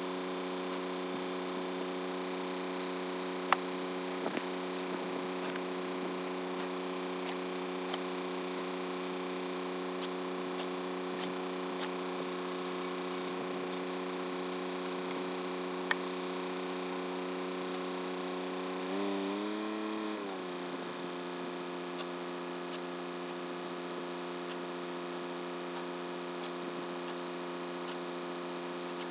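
Ford 4000 tractor engine running at a steady idle. Its pitch rises and falls briefly about two-thirds of the way through. A few sharp knocks from a shovel are heard over it.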